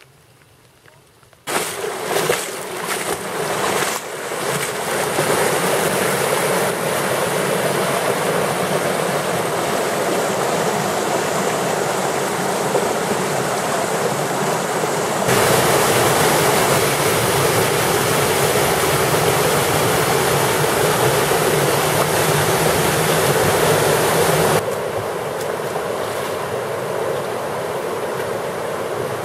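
Rushing stream water over rocks, a steady roar of flowing water that starts suddenly about a second and a half in, gets louder about fifteen seconds in and softer again near the end.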